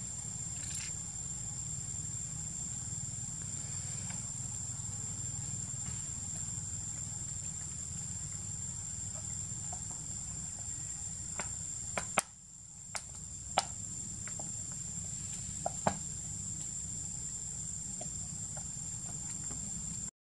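Outdoor ambience: a steady high-pitched insect drone over a low, even rumble, with a few sharp clicks and taps from about halfway through.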